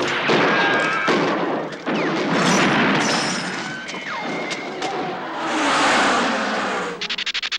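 Dense montage of vintage film battle sound effects: booms and gunfire, with a falling whistle about halfway through and a rapid burst of sharp clicks near the end.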